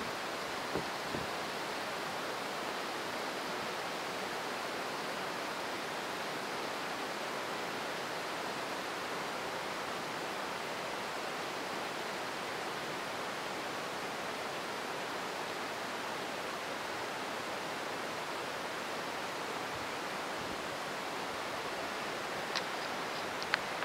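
Very heavy rain pouring down in a steady hiss, with a few faint clicks about a second in and again near the end.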